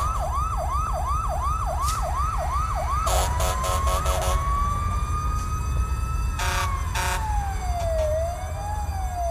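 Siren sound effect played over a concert PA: a fast yelp sweeping up and down about three times a second for the first three seconds, then a slow wail that rises and falls. A steady deep bass rumble runs beneath it, with a few short bursts of hiss.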